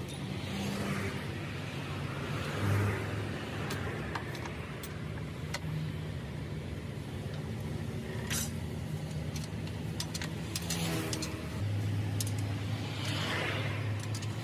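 Motor vehicles running nearby: a steady engine hum with two slow swells of passing road noise, growing stronger near the end. A few sharp metal clicks come from brake shoes being fitted to a truck's rear axle.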